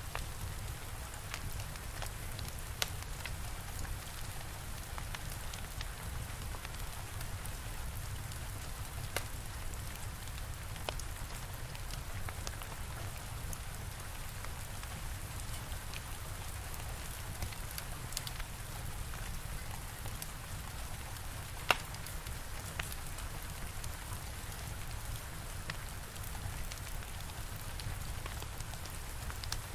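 Steady rain with the scattered crackles and pops of a wood fire, one sharper pop about two-thirds of the way through, over a low rumble.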